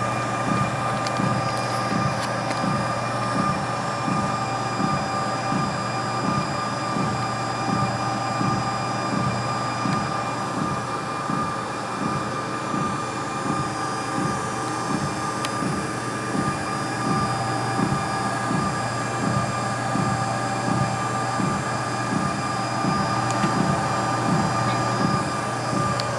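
NordicTrack 1750 treadmill running, with a steady motor hum and whine and a low thump repeating about twice a second: the unexplained thump noise of the brand-new machine.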